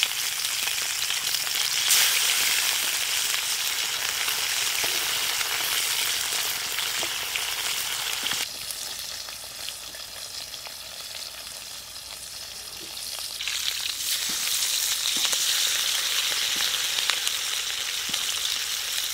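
Masala-coated pomfret fish frying in hot oil in an iron kadai: a steady sizzle with fine crackling. It drops to a softer sizzle for a few seconds in the middle and then rises again.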